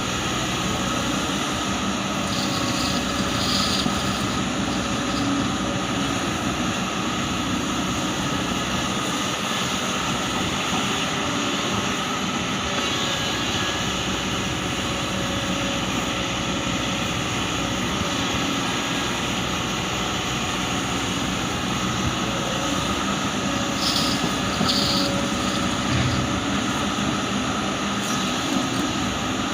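Diesel engine of a big Kobelco excavator running steadily while it digs and loads, with a few brief hissing bursts.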